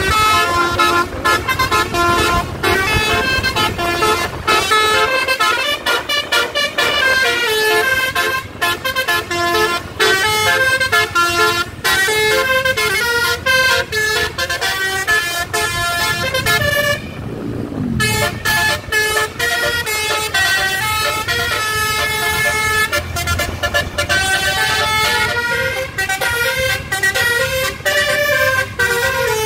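Multi-tone "basuri" telolet air horn on a PHD Trans tour bus playing a melody over and over, its notes changing quickly, with a short break about halfway through.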